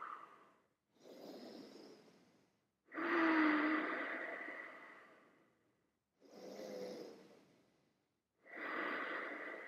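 A person breathing deeply, four breaths in a row. The first and third are short and soft; the second and fourth are longer and louder, and the second fades out slowly.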